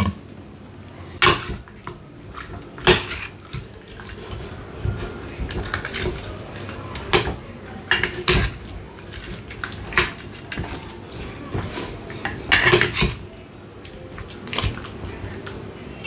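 Metal utensils knocking and clinking against pots and dishes, a dozen or so irregular sharp strikes, some in quick pairs.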